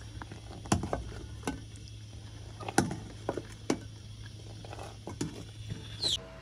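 Steel ladle stirring and scooping milk tea that has just come to the boil in a metal pot, clinking against the pot several times, over a steady low hum. A short high falling whistle sounds near the end.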